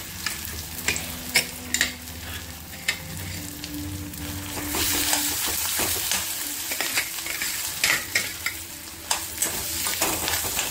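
Spiced mashed-potato filling sizzling in oil in an aluminium kadhai while a metal spoon stirs it, scraping and clicking against the pan. The sizzle grows louder about halfway through.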